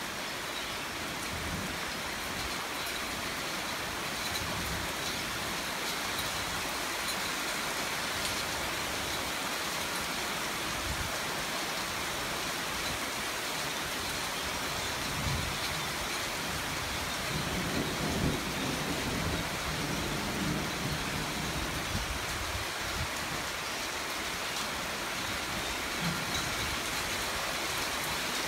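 Heavy rain falling steadily in a thunderstorm, a dense even hiss. About halfway through, a low rumble swells for several seconds and fades.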